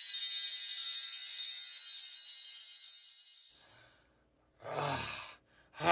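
Tinkling, chime-like music of high notes only, fading out about two-thirds of the way through. Near the end comes a short breathy sigh in a voice.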